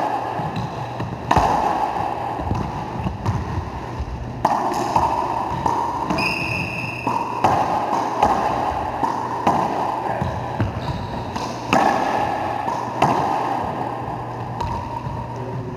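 Racquetball rally: a hollow rubber ball struck by racquets and slapping off the walls and floor, each hit echoing loudly around the enclosed court, roughly every one to two seconds. A brief high squeak about six seconds in.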